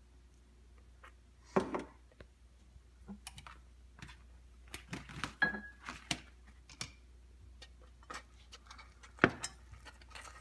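Scattered clicks and knocks of kitchen utensils at a saucepan on the stove: a salt shaker shaken over the pan, then a wire whisk picked up from the counter and worked in the thick sauce. The loudest knocks come about a second and a half in and near the end.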